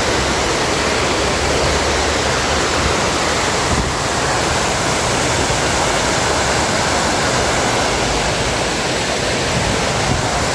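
Fountain water splashing steadily, many streams pouring over the rim of a scalloped stone bowl into the basin below.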